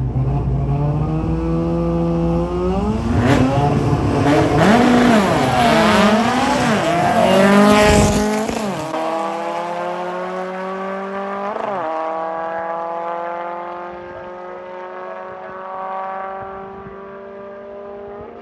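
Two import drag cars launching and accelerating down the strip, engines climbing in pitch with several gear shifts, loudest about eight seconds in, then fading as they pull away down the track.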